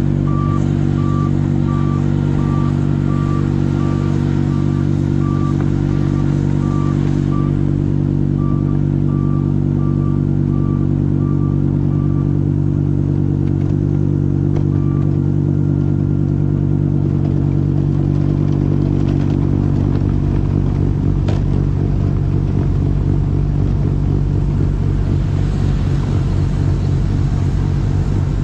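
Trackless MT6 tractor's diesel engine running steadily under load while its snowblower throws snow. A short high beep repeats about one and a half times a second over the first twelve seconds, and the engine sound turns rougher about twenty seconds in.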